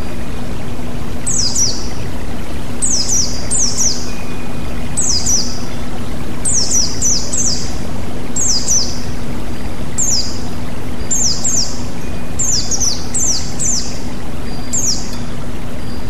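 Stream water rushing over rocks below a small waterfall, a steady even noise, with a white-eye (burung pleci) repeating high, thin falling chirps in quick groups of two or three, about one group a second, from about a second in until near the end.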